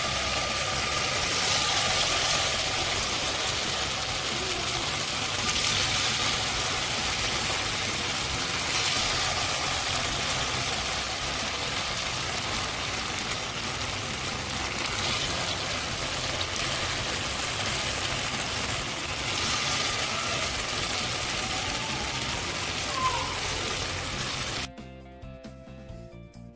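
Batter-coated jackfruit pieces sizzling as they deep-fry in hot oil, a steady hiss that swells every few seconds, with faint music underneath. The sizzling cuts off abruptly about two seconds before the end, leaving only quiet background music.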